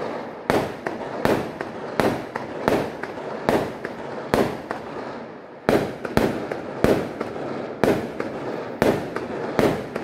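Aerial fireworks going off: a steady run of sharp bangs, more than one a second, with a short lull about five seconds in.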